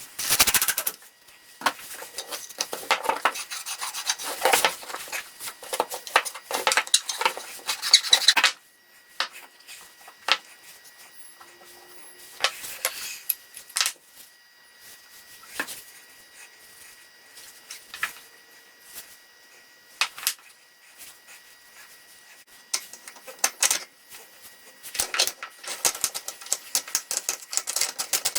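Hand work on wood: repeated rubbing and scraping strokes like filing or hand sanding for about eight seconds, then scattered clicks and light knocks, and another run of scraping strokes near the end.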